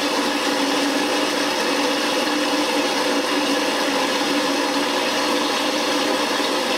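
Thermomix food processor running steadily at medium speed, its blades whirring through a cucumber purée while oil is drizzled in to emulsify it, a steady hum with a few fixed tones.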